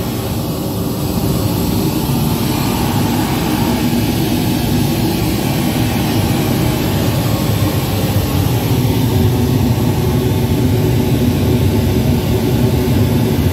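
Pink noise played loud through a PA sound system as a test signal for tuning with a real-time analyser: a steady, full-range hiss, heaviest in the bass.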